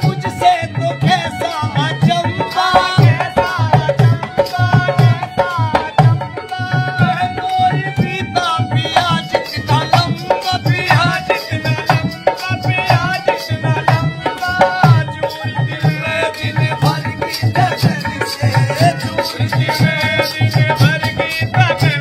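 Dholak drumming a fast, steady folk beat while a hand harmonium plays the melody.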